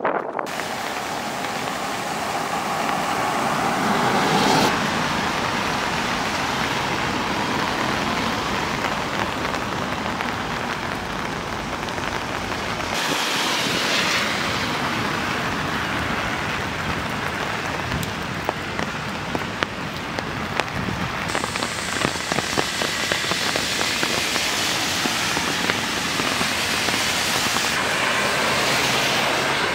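Steady rain falling, with scattered sharp drop ticks in the second half.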